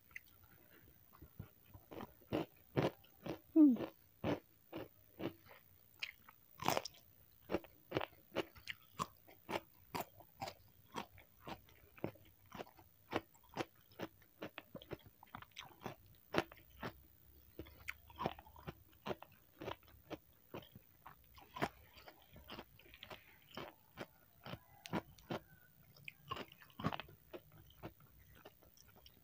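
Close-miked chewing and biting of hand-eaten rice with sambal goreng pete: a steady run of short wet crunches and smacks, about two to three a second.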